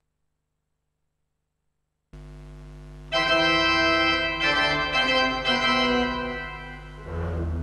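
Pipe organ playing. A soft low held note comes in about two seconds in, then a loud, full chord enters a second later. Several chord changes follow and ease off, and a deep low note sounds near the end.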